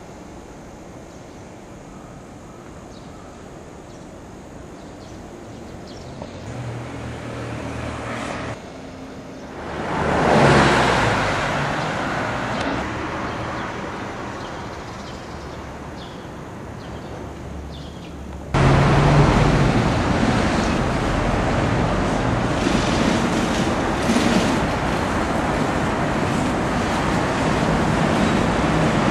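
City street ambience dominated by road traffic noise, cut together from several clips. It is fairly quiet at first, swells about ten seconds in and slowly fades, then jumps to a louder, steady traffic noise about eighteen seconds in.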